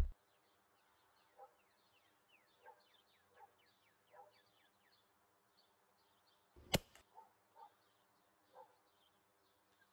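Faint birdsong, a run of quick falling chirps, with one sharp crack about two-thirds of the way through: the shot of a suppressed EDgun Leshiy 2 PCP air rifle firing a .30 pellet.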